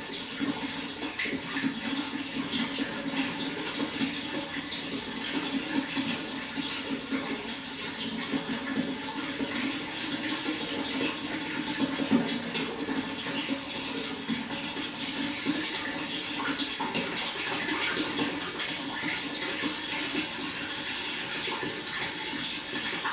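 Water flowing steadily, a constant rushing sound.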